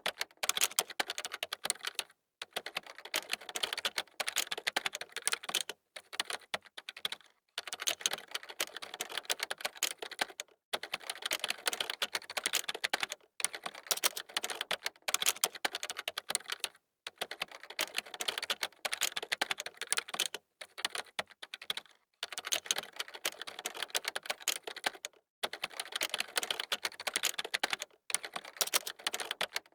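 Computer keyboard typed fast: dense runs of key clicks lasting a few seconds each, broken by short pauses.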